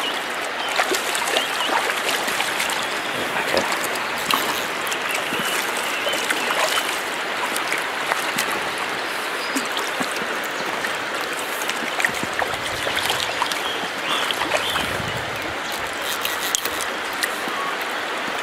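Steady rush of a stream running over a stony bed, with scattered brief ticks and small splashes over it.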